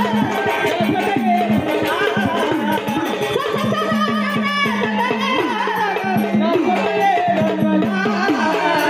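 Indian folk devotional music: rapid hand-drum strokes with gliding bass notes over a steady held note, with a wavering melody line on top.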